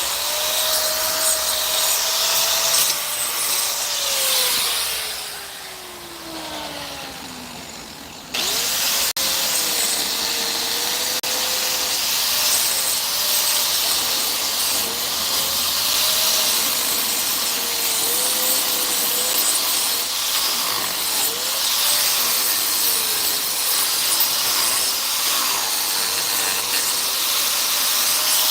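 Electric power tool running on wood. About three seconds in its motor winds down and fades, and it starts again sharply about eight seconds in. It then runs steadily, its pitch dipping briefly again and again as it takes the load.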